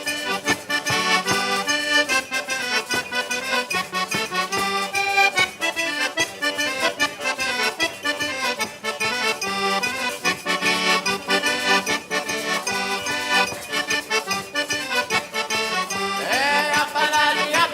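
Accordion playing a lively traditional Italian folk tune with a steady beat, an instrumental break between the sung verses of the song.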